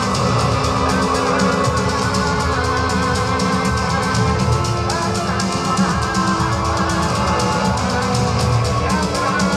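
Loud orchestral-electronic show music with a driving drum beat and long held notes, the drone light show's original score.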